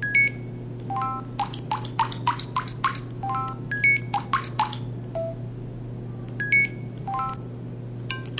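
Motorola StarTAC 2004 mobile phone's electronic key and effect tones: a quick run of short beeps at changing pitches, some sounding as two-note dial tones, about three a second, pausing briefly around the middle. A steady low electrical hum runs underneath.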